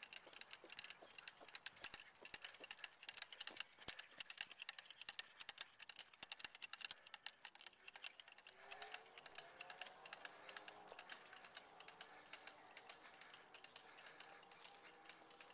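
Quick, dense clicking and rattling of a dog-drawn three-wheeled cart rolling along a concrete sidewalk, thinning out about halfway through.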